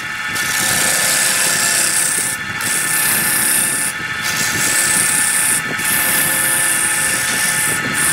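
Wood lathe running while a gouge cuts a large spinning wooden disc: a steady hiss of shavings tearing off over the even whine of the machine, broken by a few short pauses as the tool comes off the wood.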